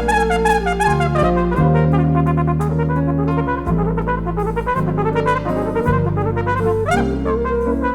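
Recorded Afro-jazz: a brass lead, trumpet or flugelhorn, plays a bending melody over a stepped bass line and drums, with a quick upward slide near the end.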